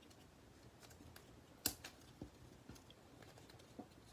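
Faint, scattered clicks and taps of hands handling and opening an AirPods box, with one sharper click about one and a half seconds in.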